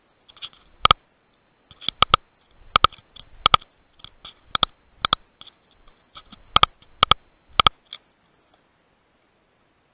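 About fifteen sharp clicks, some single and some in quick pairs, over roughly seven seconds. They match the buttons being pressed on a Pard DS35 digital night-vision riflescope, heard through the scope's own microphone. A faint steady high electronic whine runs underneath and stops with the last click.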